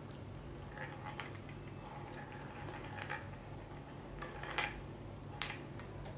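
A cat batting a plastic tumbler toy with balls in its track: about five light, sharp clicks and rattles, the loudest about four and a half seconds in, over a faint low steady hum.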